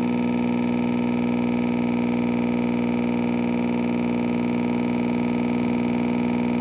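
Bedini pulse motor with a rewound coil running at a steady speed, a constant pitched hum with many overtones that holds the same pitch throughout. It has been turned down just below full speed to its sweet spot, where it runs well.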